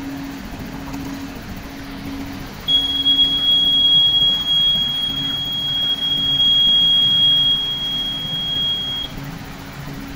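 Isuzu 700P truck's diesel engine running with a steady low hum to power its truck-mounted crane as the boom is raised. A steady high-pitched tone starts abruptly about two and a half seconds in and cuts off sharply about six seconds later.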